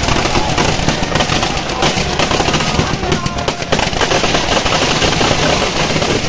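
Firecrackers packed inside a burning Ravana effigy going off in a dense, unbroken string of sharp bangs.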